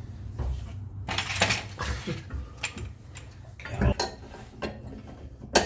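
Irregular metallic clinks and knocks of hand tools and metal parts as the rear differential carrier is worked up into place under the car, over a steady low hum.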